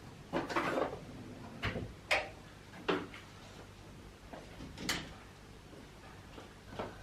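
A run of short household knocks and clatters, five or six of them at uneven intervals, the sharpest about two seconds and about five seconds in.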